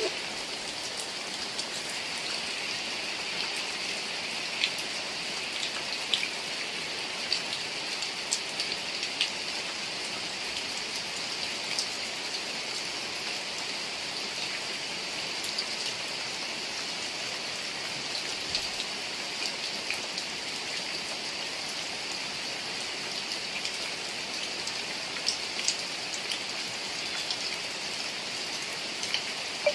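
Heavy rain falling steadily, with scattered sharper drop hits standing out above the steady hiss.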